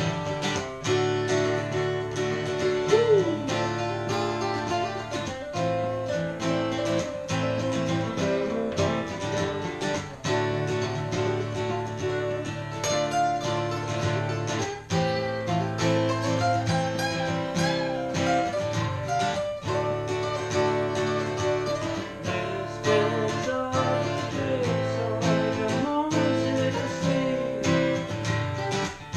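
Two acoustic guitars played together, strummed in a steady rhythm.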